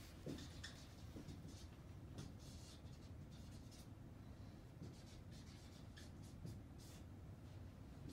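Dry-erase marker drawing on a whiteboard: faint, short, irregular scratchy strokes.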